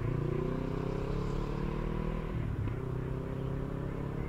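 Motor vehicle engine running and slowly rising in pitch as it accelerates, with a brief break about two and a half seconds in before the note climbs again.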